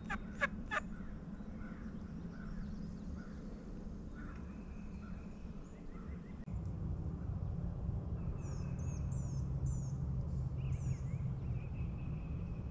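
The last notes of a wild turkey gobbler's rapid, pulsing gobble in the first second, then songbirds calling in the woods. About six and a half seconds in, the background gets louder and quick, high, falling chirps of songbirds repeat.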